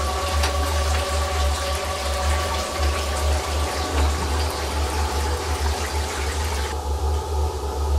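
A steady rushing hiss with faint crackles over a low droning music bed; the hiss cuts off suddenly near the end while the drone carries on.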